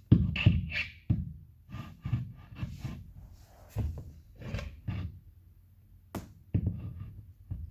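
Irregular knocks and thumps of flat-pack furniture panels and fittings being handled and pushed into place, with a sharp click about six seconds in.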